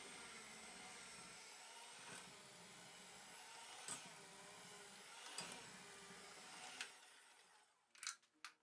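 Bosch hand mixer running with dough hooks, kneading a stiff rye and wheat bread dough in a glass bowl: a steady motor whine with a few clicks of the hooks against the bowl. The motor winds down near the end, followed by a couple of sharp clicks.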